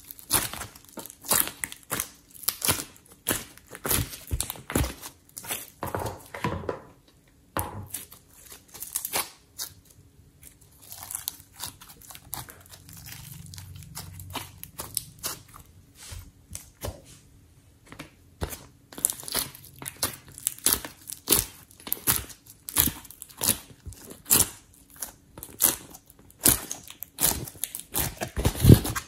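A lump of slime squeezed and kneaded by hand, with quick sticky crackles and pops. The pops thin out for a few seconds around the middle while the slime is pulled and stretched.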